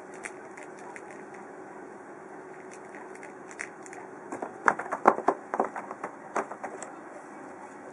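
A cat's paw batting a toy mouse on a corrugated cardboard scratcher: a quick flurry of sharp taps and scratchy knocks starting about four seconds in, over a faint steady hum.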